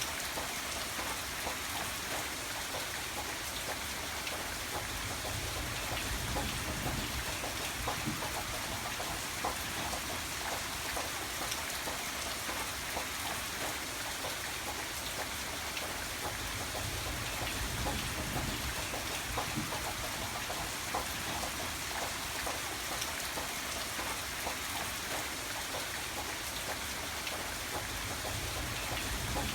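Steady rain falling: a dense even hiss with many separate drops striking a surface. A low rumble swells and fades twice underneath.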